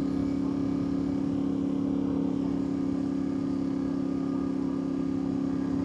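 2024 Yamaha Tenere 700's 689 cc parallel-twin engine running at a steady cruise, its pitch holding constant, with wind and road noise under it.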